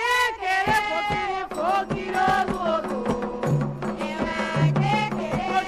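Candomblé ritual song: a voice sings a chant line, and drums and percussion come in under it about a second in. Deep drum tones join past the middle.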